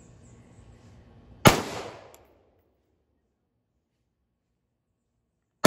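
Two shots from a Ruger AR-556 MPR rifle firing 5.56 mm rounds: a sharp crack about a second and a half in that rings off over most of a second, then dead silence, and a second crack right at the end.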